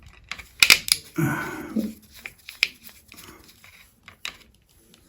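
Scattered sharp clicks and light knocks from hand work on a wall-mounted plastic alarm keypad, the loudest about two thirds of a second in, with a brief murmured voice about a second in.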